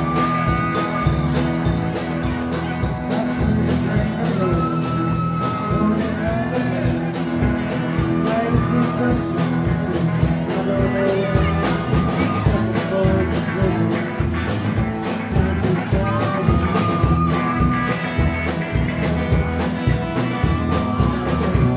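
Live rock-and-roll band with electric guitars, bass and drum kit, playing a steady, driving beat, with lead guitar bends over the rhythm.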